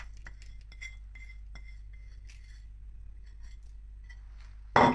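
Ceramic plate and bowl clinking softly while spices are pushed off a small plate into a bowl of raw chicken, with scattered light ticks and scrapes, then one loud clatter near the end.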